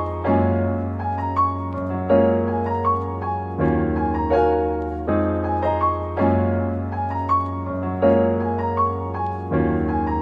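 Background keyboard music: held chords that change every second or so over a steady low bass.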